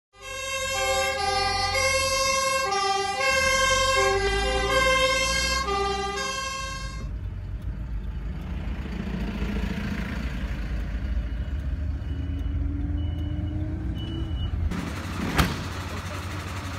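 Fire engine two-tone siren, alternating between a low and a high note for about seven seconds, then cutting out. Heavy vehicle engine and road rumble follow, the engine note rising slowly as it speeds up, with one sharp knock near the end.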